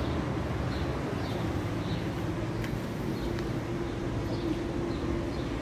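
Steady low rumble of outdoor city background noise, with faint short high chirps of small birds every second or so. A steady hum comes in past the middle.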